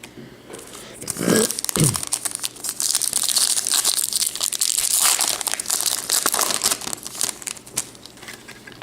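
A foil baseball card pack wrapper being torn open and crinkled, a dense crackling that runs for several seconds and fades near the end.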